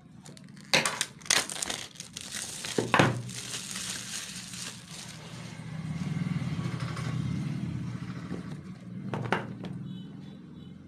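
Plastic wrapping on a boxed smartphone being cut with a thin knife and torn off, crinkling and rustling, with several sharp crackles in the first three seconds and another near the end.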